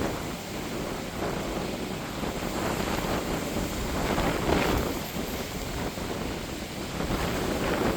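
Wind buffeting a phone's microphone, a steady rumbling rush that swells in gusts, loudest about halfway through.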